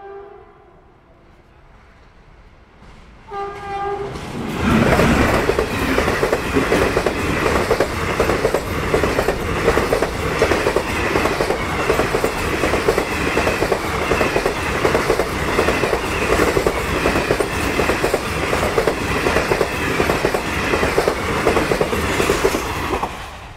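Indian Railways express train hauled by a WAP-4 electric locomotive passing at speed: the end of a horn blast at the start and a short horn toot about three seconds in, then a loud rush of the locomotive and coaches with a fast clickety-clack of wheels over the rail joints. The noise drops away sharply near the end as the last coach goes by.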